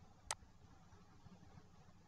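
A single sharp computer mouse click about a third of a second in, over near-silent room tone.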